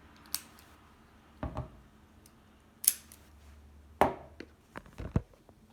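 Small metal padlocks and homemade lock picks being handled: a handful of sharp clicks and knocks at uneven intervals, the loudest about 3 and 4 seconds in.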